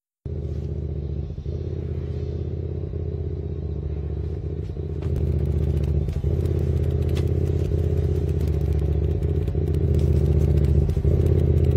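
A motor vehicle engine running steadily with a deep, even drone, growing louder about five seconds in and again near the end, with light rattling clicks over it.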